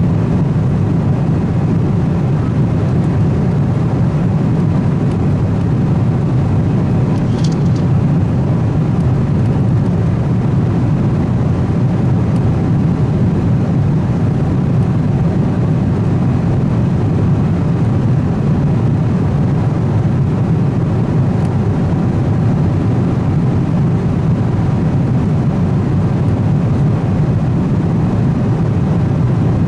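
Steady, loud cabin noise of a Boeing 777-200ER in cruise: the low engine and airflow drone heard from an economy seat.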